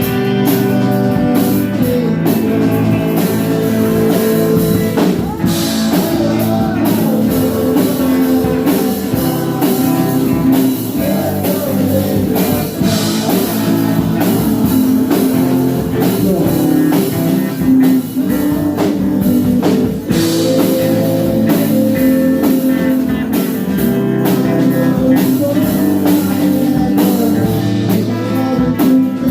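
Rock music with guitar and drums playing steadily and loudly.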